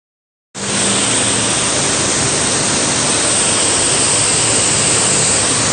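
Rice colour sorter machine running while it sorts parboiled rice: a loud, steady rushing hiss with a faint low hum underneath, starting abruptly about half a second in.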